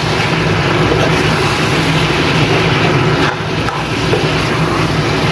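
Chicken pieces, onions and ground spices frying in oil in a kadai, with a steady sizzle and a metal spatula stirring and scraping the pan, over a constant low hum. The masala is being fried until the oil starts to separate.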